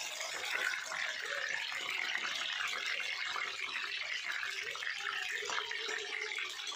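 Eggplants deep-frying in hot oil in a steel kadhai, a steady sizzle and crackle. The cook puts this crackle down to moisture in rainy-season vegetables. A steel slotted spoon scrapes in the pan as the pieces are lifted out.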